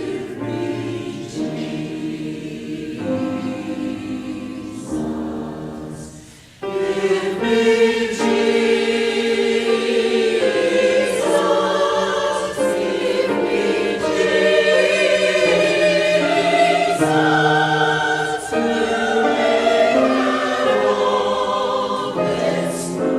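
Church choir singing a hymn in sustained, held notes. It is softer at first, breaks off briefly, then comes back fuller and louder about six and a half seconds in.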